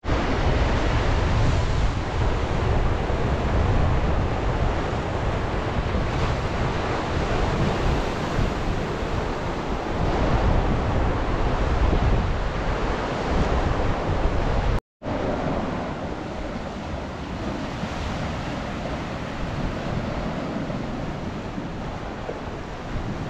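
Sea surf breaking and washing over rocks, with wind buffeting the microphone as a heavy low rumble. The sound cuts out briefly about two-thirds of the way through, then goes on with less wind rumble.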